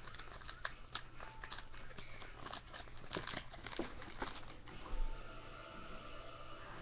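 Trading cards being rummaged through and handled close to the microphone: a run of small clicks and crinkles, then a dull thump about five seconds in.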